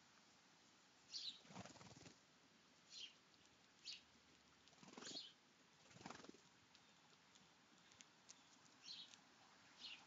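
Sparrows at a ground seed feeder: about half a dozen short, high chirps and a few brief fluttering wingbeats as birds fly in and land.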